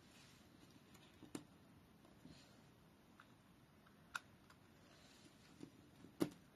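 A handful of light, separate clicks and taps of a craft pick-up tool and adhesive embellishment gems against a paper card: gems being lifted off their backing sheet and pressed into place. The loudest click comes near the end, over near-silent room tone.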